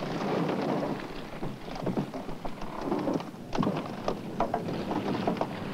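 Heavy rain pouring in a storm, a dense rushing hiss with many sharper splashes scattered through it.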